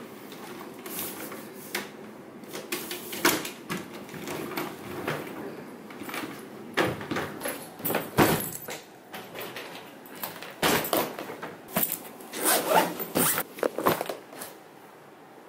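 Luggage being handled: suitcases wheeled and moved, then a zipped bag opened and rummaged through, a string of irregular zipper rasps, scrapes and rustles.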